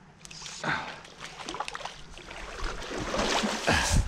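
Water splashing as a brown trout rises and takes a dry fly at the surface: a run of uneven splashes that grows louder toward the end.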